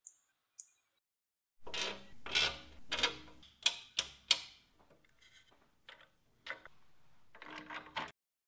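Small sharp clicks and taps from mini toggle switches being handled and fitted into a steel cabinet panel, with three crisp clicks in quick succession near the middle and quieter handling sounds between.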